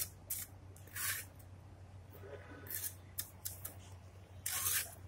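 Short scraping strokes of a steel mason's trowel on mortar and brick, several in a row, with the longest and loudest near the end, over a low steady hum.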